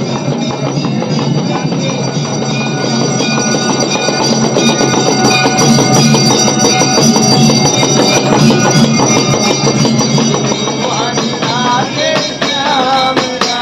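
Brass hand cymbals clashed in a fast, steady rhythm, their metallic ringing sustained over a drum beat. Near the end a voice starts singing.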